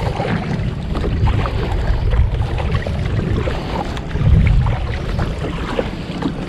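Kayak paddle strokes splashing and dripping in choppy sea water, with wind buffeting the microphone as a steady low rumble that swells briefly a little after four seconds in.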